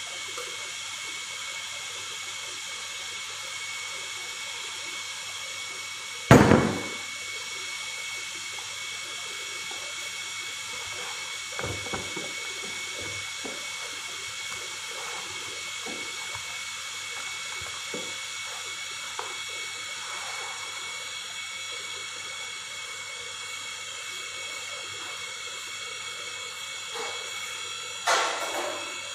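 Steady sizzling from a cooking pan with oil in it: an even hiss with faint crackles. A single sharp knock, the loudest sound, comes about six seconds in, and a brief clatter near the end.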